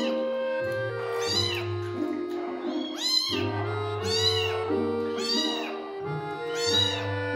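A very young kitten meowing over and over, thin high-pitched cries about once a second, over background music.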